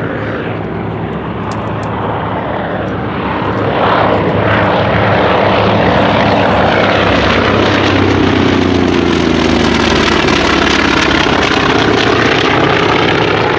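Piston-engined propeller warbird flying past, its engine sound growing louder about four seconds in and staying loud, with the engine pitch dropping as it goes by.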